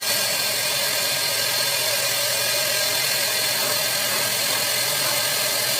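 Sawmill machinery running steadily: a constant whir with a high whine held at one pitch.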